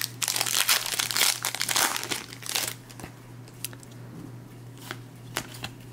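Foil wrapper of a Panini Contenders basketball card pack crinkling as it is opened, a dense crackle for about the first three seconds. After that, a few light clicks as the cards are handled.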